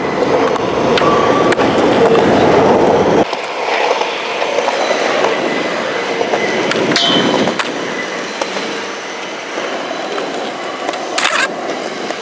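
Skateboard wheels rolling on concrete. A loud rumble cuts off abruptly about three seconds in, then quieter rolling follows, with a sharp clack about seven seconds in and another louder one near the end.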